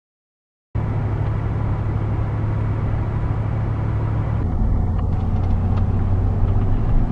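Car running at road speed, heard from inside the cabin: a steady low engine hum and road rumble that cuts in abruptly about a second in, after a brief silence.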